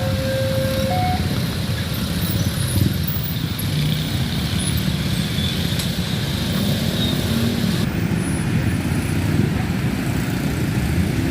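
Road traffic at a level crossing: the engines of waiting and passing trucks and cars run with a steady low rumble. A short two-pitch tone sounds right at the start and then stops.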